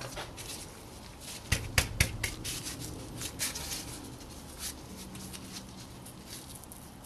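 2010 Toyota Prius front brake caliper being wiggled down over new pads fitted with extra metal plates, a tight fit: a string of metallic clicks and knocks, the three sharpest close together about a second and a half in, with lighter clicks and rubbing around them.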